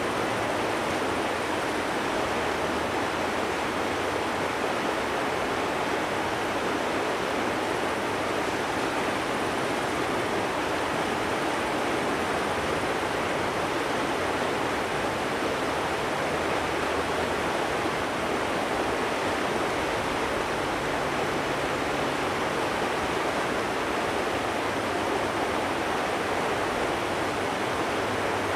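Steady, even rushing of flowing river water, unchanging throughout.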